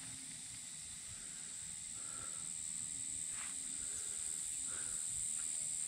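Insects droning steadily at a high pitch, a continuous hiss-like buzz, with a few faint short chirps in between.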